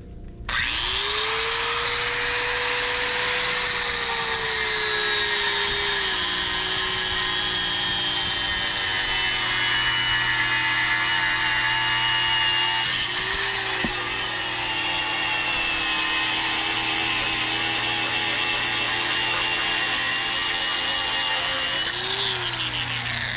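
Angle grinder cutting through a link of heavily rusted steel anchor chain. The motor whines up to speed about half a second in, then runs steadily with the hiss of the disc in the steel, its pitch dipping as the disc bites. It slackens and picks up again about halfway through and winds down near the end.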